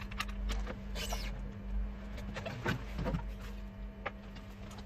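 Scattered small clicks and a brief scrape about a second in, from tools and handling on a Samsung Galaxy J1 (2016) smartphone being taken apart, over a steady low hum.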